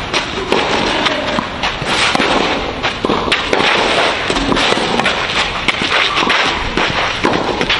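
A loud, dense crackling noise with many sharp clicks in it, under tennis balls struck back and forth by racquets in a rally on a clay court.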